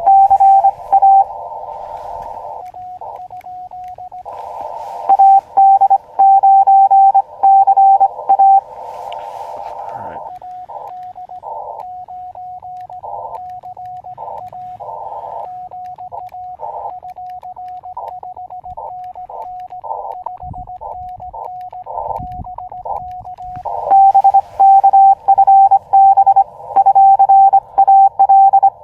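Morse code (CW) tones near 700 Hz from an Elecraft KX2 transceiver. A loud station keys over the receiver's filtered hiss at the start, again around five to eight seconds in, and from about 24 seconds on. Quieter, cleaner keyed tones without the hiss fill the stretch in between.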